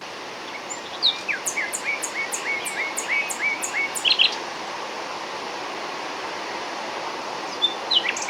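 A songbird sings a rapid series of about eight short, falling notes, with a few higher notes after them and another burst of song near the end. Under it runs a steady rush of distant flowing water.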